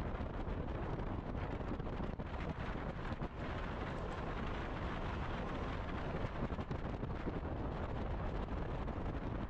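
Steady rushing wind on the microphone of a camera carried on a road bike riding at speed, with no distinct events.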